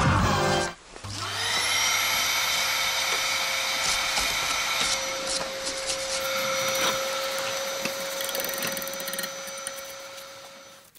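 Handheld electric power tool spinning up with a rising whine about a second in, then running steadily and fading out toward the end.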